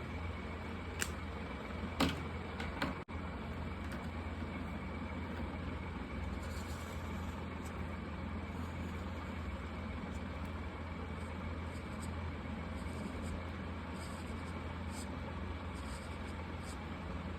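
Felt-tip marker strokes on paper, faint and scratchy, over a steady low hum. A few sharp clicks come in the first three seconds.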